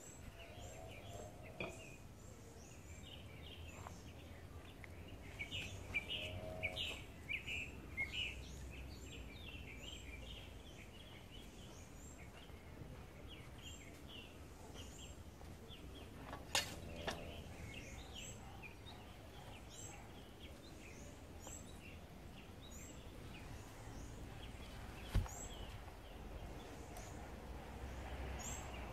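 Small birds chirping and twittering on and off throughout, over a low rumble. Two sharp knocks stand out, one about 17 seconds in and one about 25 seconds in.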